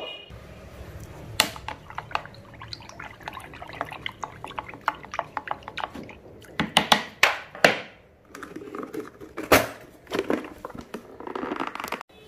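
Soapy cleaning liquid being stirred in a plastic jug with a small hand-held stirrer, giving many quick irregular clicks and taps against the plastic with light sloshing, busiest in the middle of the stretch.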